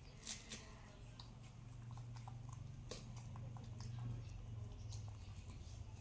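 Faint clicks and soft smacks of pomelo segments being peeled and eaten by hand, with a few sharper clicks near the start, over a low steady hum.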